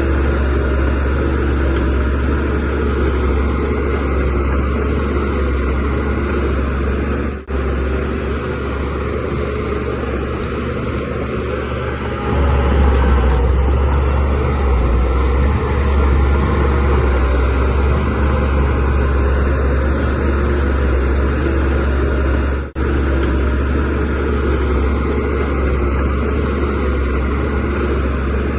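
Shantui DH17C3Pro bulldozer's diesel engine running steadily with a deep rumble while pushing soil, getting louder about twelve seconds in. The sound breaks off for an instant twice, about seven and twenty-three seconds in.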